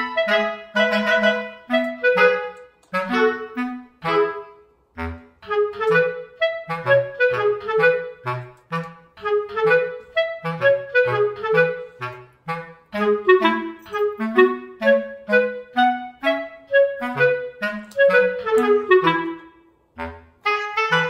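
Background music: a melody of short, separate notes over a lower bass line, with a brief pause near the end.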